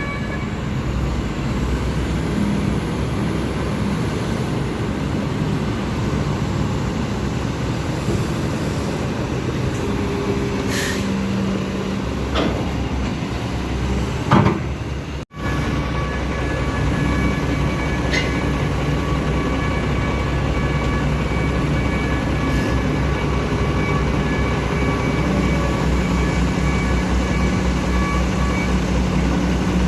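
Lovol FR220D crawler excavator working: a steady diesel engine drone with a high, even whine over it, and several sharp metal clanks about ten to fifteen seconds in, the loudest just before the sound cuts out for a moment.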